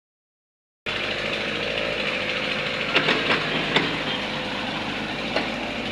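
Excavator working: a steady mechanical noise that starts about a second in, with a few sharp knocks and clanks.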